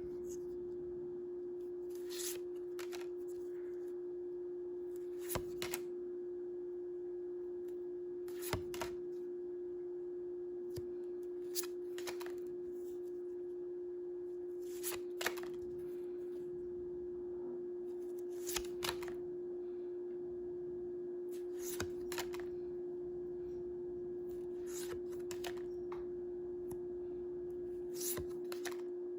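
A steady humming tone at one pitch, with short clicks and flicks of trading cards being handled every few seconds.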